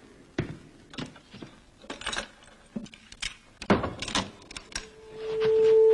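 Scattered sharp knocks and scuffling clicks, then about five seconds in a steady held note swells up and stays loud.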